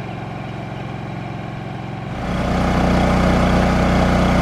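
Onboard RV generator running steadily with an even engine hum, at first heard from about 25 feet away. A little over two seconds in, the sound steps abruptly louder and fuller.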